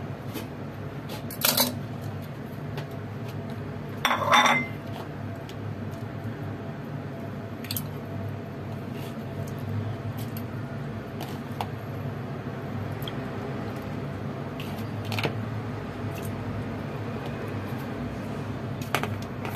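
Pieces of raw oxtail being laid into an empty metal pan from a plastic colander: a few short knocks and clanks of meat, colander and hand against the pan, the loudest about four seconds in. A steady low hum runs underneath.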